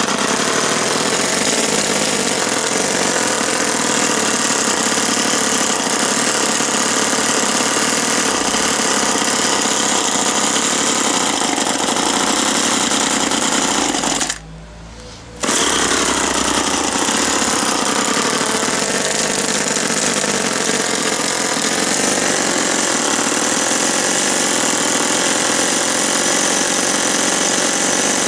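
Small O&R 1 hp two-stroke engine of a 1958 Little Wonder hedge trimmer running at high speed, with the reciprocating blades chattering. The engine speed rises and falls a few times as the carburettor is adjusted. The sound cuts out for about a second halfway through and then comes back at full speed.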